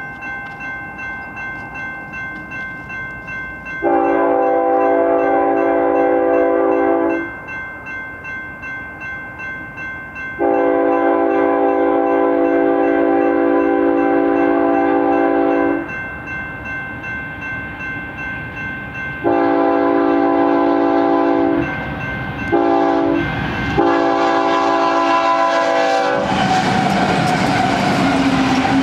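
Grade-crossing bell ringing steadily while an approaching BNSF GE diesel locomotive sounds its air horn for the crossing: two long blasts, a shorter one, a brief toot and a final long blast. Near the end the locomotive reaches the crossing and the engine and the clatter of the double-stack train's wheels take over.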